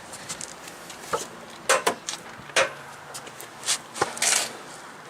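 Irregular sharp clicks and knocks of objects being handled and set down, about seven in all, with a short scraping rustle a little past four seconds in.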